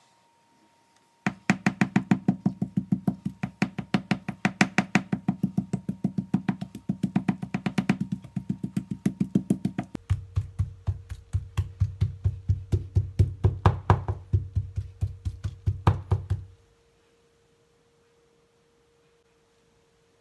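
A fast, even percussive beat of sharp knocks, about five a second. About halfway through it changes to a deeper, heavier thud, and it stops a few seconds before the end.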